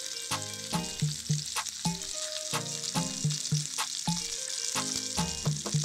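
Semolina-coated mackerels shallow-frying in hot oil, a steady sizzle.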